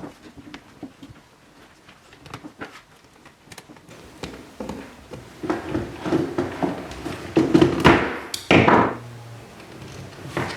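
Scattered taps and knocks of things being handled, growing into a run of thuds and clatter, with a loud scraping slide near the end.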